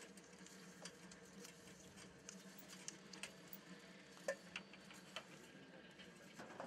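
Rotary pipe cutter turned round a copper pipe: faint, irregular metallic clicks and ticks, with one sharper click about four seconds in.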